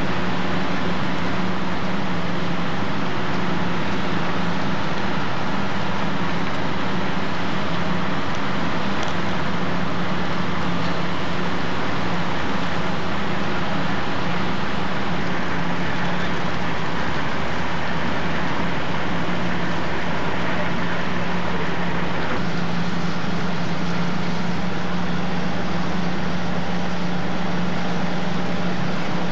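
Fire engine diesel engines running steadily, a constant unbroken hum with no change in pitch.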